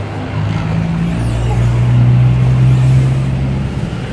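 A road vehicle's engine running close by at low speed, its low hum growing louder to a peak about two to three seconds in, then easing off as it passes.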